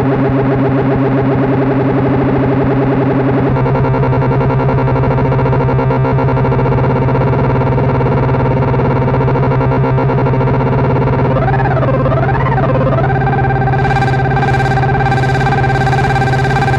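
Behringer MonoPoly analog synthesizer holding one low sustained drone note. Its tone changes abruptly a few seconds in, and about two-thirds of the way through the upper tones wobble up and down twice before settling into a steady higher overtone.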